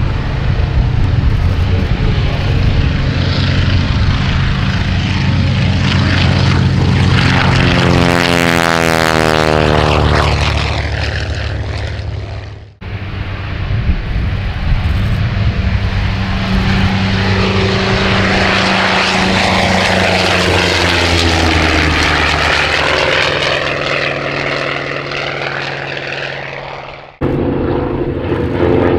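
Big radial engines of World War II propeller warbirds at full takeoff power: first a Grumman TBM Avenger lifting off and passing close by, its sound sweeping in pitch as it goes past, then a Vought F4U-5NL Corsair taking off. Near the end both aircraft are heard in flight together. The sound breaks off briefly twice.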